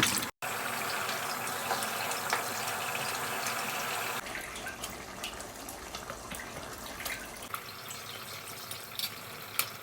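Water running and splashing, with small drips and pops scattered through it. It drops out briefly just after the start and grows quieter and thinner about four seconds in.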